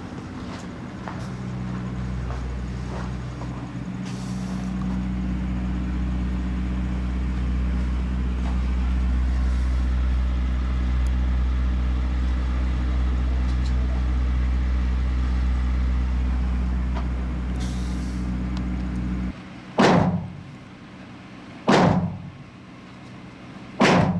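A steady low motor hum cuts off suddenly near the end. Then come three single gunshots about two seconds apart, the loudest sounds here.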